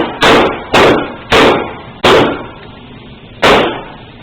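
Gunshots fired in quick succession: five sharp, loud shots, the first four about half a second apart and the last after a pause of about a second and a half, each trailing off in a short echo.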